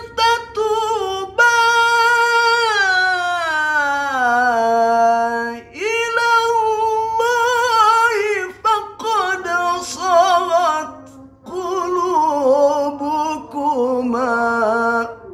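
A man reciting the Quran in melodic tilawah style, singing long held phrases with ornate trills. The first phrase starts high and slides steadily down in pitch; after short breaths the later phrases climb again with quick warbling turns.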